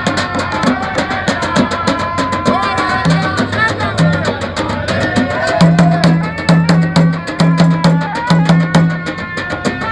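Traditional Gulf Arab drumming: a large barrel drum beaten with a stick and hand-held frame drums played together in a fast, steady rhythm, with voices over the drums.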